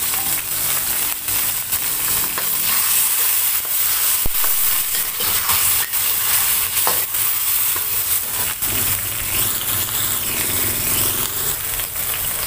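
Spice paste with a little water sizzling steadily in a hot steel wok, stirred with a metal spatula that scrapes and knocks against the pan now and then.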